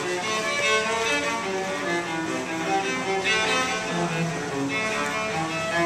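Solo cello played with a bow, a melody of sustained notes that change every half second or so.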